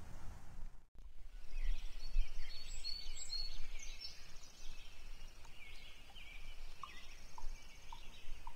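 A dense chorus of small birds chirping, whistling and twittering, high-pitched, starting abruptly about a second in. Near the end it is joined by a few short, evenly spaced lower peeps.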